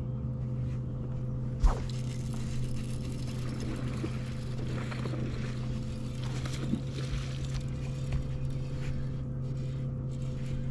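Steady electric hum of a bass boat's bow-mounted trolling motor. A sharp thump comes about a second and a half in, then a few seconds of scattered rustling and splashy noise while a hooked fish is fought on a bent rod.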